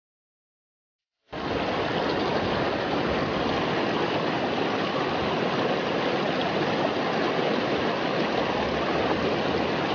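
River water rushing: a steady, even rush of flowing water that starts suddenly about a second in and holds without change.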